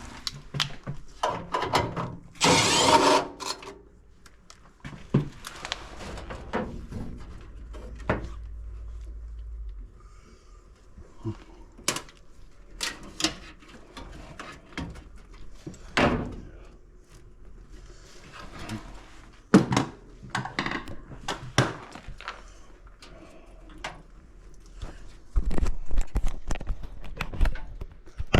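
Knocks, clicks and clunks of tools and metal parts being handled while a furnace blower motor is taken out, with a short loud noisy burst about three seconds in.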